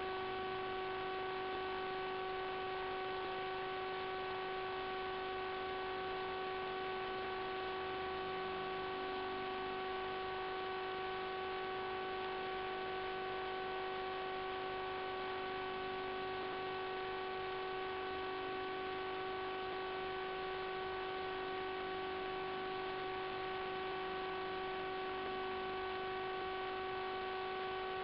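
Steady electrical buzz on the FPV video link's sound channel: one unchanging tone with a row of overtones over a hiss. It does not follow the throttle, so it is interference, not the motor.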